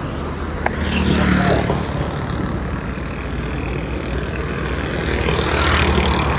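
Car engine running steadily, with a noisy rush that swells louder twice, about a second in and again near the end.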